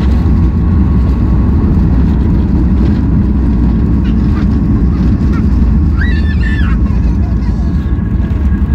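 Loud, steady cabin rumble of a Boeing 737-800 with CFM56-7B engines rolling out on the runway after touchdown: engine and wheel noise, with a thin steady whine running through it.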